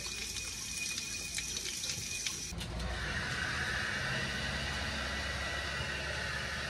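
Water running from an outdoor tap into a sink, cut off abruptly about two and a half seconds in. After that comes a steady low hum with a hiss.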